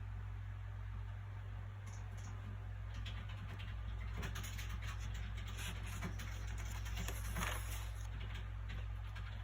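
Soft rustling and crinkling of book pages being handled and turned, over a steady low background hum. The rustling starts about two seconds in and is busiest in the middle.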